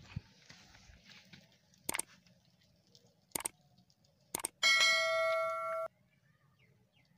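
Subscribe-button overlay sound effect: three sharp mouse clicks about a second apart, then a bright bell chime that rings for just over a second and cuts off abruptly.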